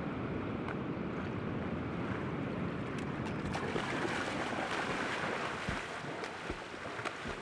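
Water splashing as a person runs through shallow lake water, with wind noise on the microphone.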